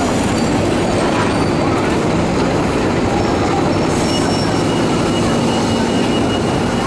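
Steady, loud running of a city bus's diesel engine close by, mixed with downtown street traffic noise.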